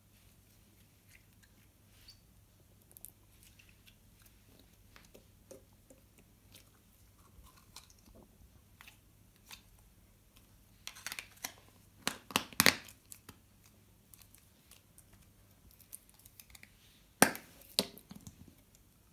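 Pink putty being stretched and squished by hand, with faint sticky crackles and small clicks. Then two bursts of louder sharp clicks and clatters, about eleven seconds in and again near the end, as small plastic putty tins and their lids are handled and set down.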